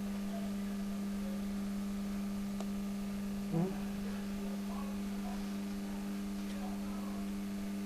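A steady electrical hum: a low, constant tone with fainter overtones. A brief short sound breaks in about three and a half seconds in.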